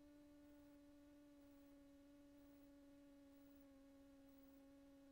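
Near silence, with a faint steady hum held on one pitch.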